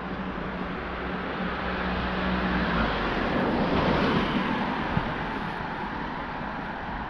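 Road traffic: a passing vehicle's tyre and engine noise swelling to a peak about four seconds in, then slowly fading.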